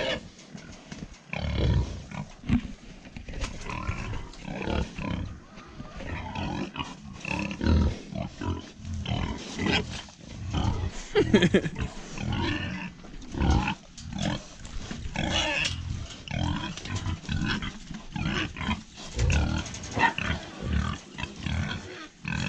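Pigs grunting while being fed: a dense run of short, irregular grunts that goes on throughout.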